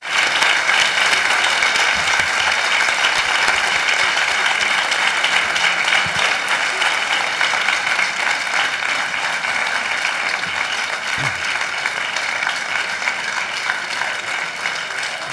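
A large crowd applauding in a hall. The applause starts suddenly, holds strong, and slowly dies down toward the end.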